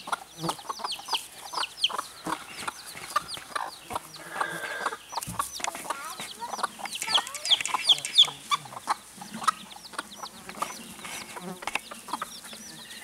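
Icelandic chicken chicks peeping in many short, high chirps, with their mother hens clucking low now and then and scratching and rustling in dry leaf litter.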